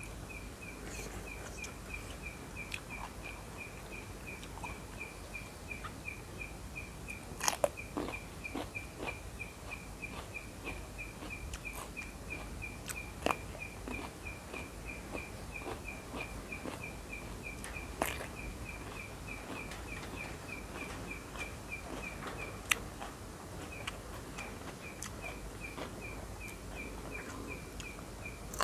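Steady outdoor chirping, one short high note repeated evenly about three times a second, over a low background hum. A few sharp clicks and crunches from eating stand out above it, about four of them loud.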